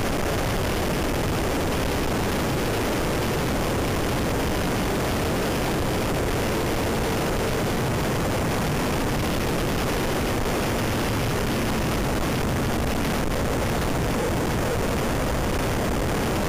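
Motorcycle riding at speed: a steady rush of wind over the microphone with the engine running underneath, its faint note shifting a little through the curves.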